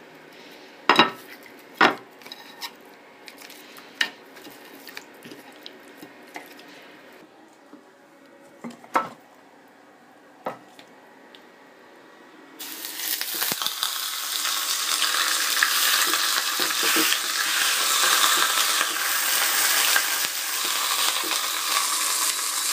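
A few sharp knocks and clicks of handling, then about twelve seconds in a steady, loud sizzle starts abruptly as a seasoned bone-in cut of meat goes into a hot frying pan to be browned.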